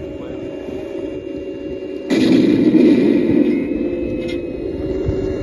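A steady hum, then about two seconds in a tank cannon firing sound effect: a sudden blast that trails into a long rumble lasting about three seconds.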